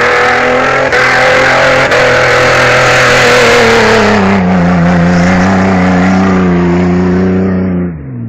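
Jeep Wrangler engine held at high revs while its tyres spin and churn through snow on a climb. The revs sag about halfway through, then fall off sharply near the end as the throttle is released.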